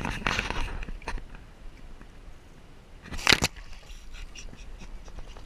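Shallow bayou water splashing and sloshing as a large flathead catfish is released by hand, with one loud splash about three seconds in as the fish kicks away.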